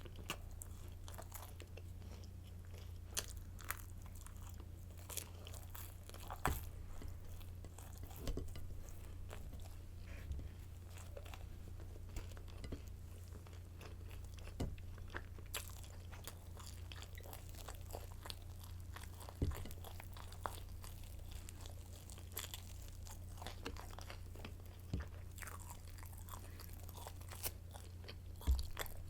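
Crunchy garlic baguette sticks being bitten and chewed close to the microphone: irregular crisp crackles, with a few louder bites, over a steady low hum.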